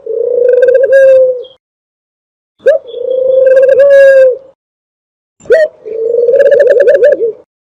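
Dove cooing, used as a hunting call to draw doves in: three repeated calls, each a short rising note followed by a pulsing, rolling coo of about a second and a half, with silent gaps between.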